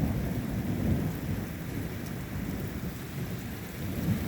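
Thunder rumbling low and steady, with rain falling.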